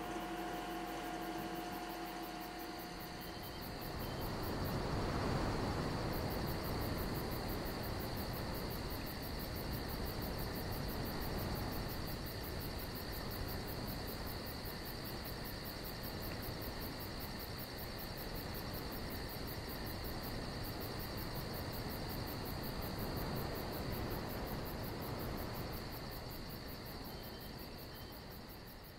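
Night-time outdoor ambience: crickets chirping in a steady high trill, with the even rush of a creek running from about four seconds in.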